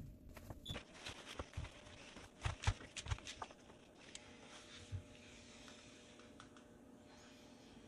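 Clothes being pushed by hand into the drum of a front-loading washing machine: fabric rustling with a few light knocks and clicks, clustered from about two and a half to three seconds in, and quieter after about five seconds.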